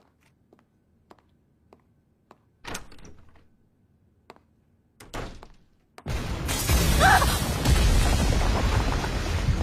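Anime fight-scene sound effects: a few faint clicks and two heavy thuds, then about six seconds in a loud, dense rumbling noise cuts in with music and runs on.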